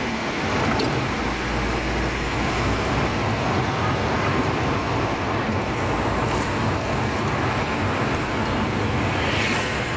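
Steady road and traffic noise of a car being driven through city traffic.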